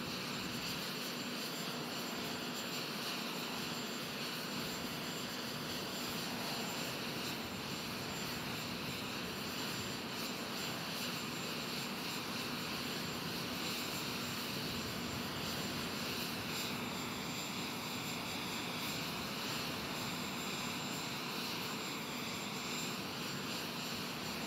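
Steady jet aircraft turbine noise: an even rush with a constant low hum and a thin high whine, unchanging throughout.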